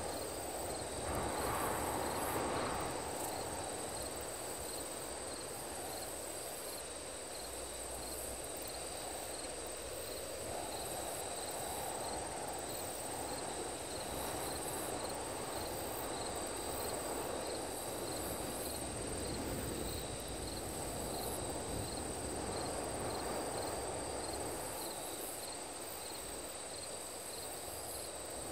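Night insects, crickets, chirping steadily in a regular pulse with a thin, high steady tone above, over a low, even noisy drone.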